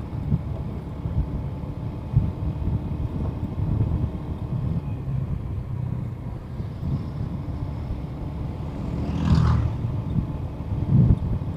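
Motorcycle riding noise picked up by a helmet-mounted action-camera mic: a steady low rumble of wind buffeting and engine. About 9 s in there is a brief louder whoosh.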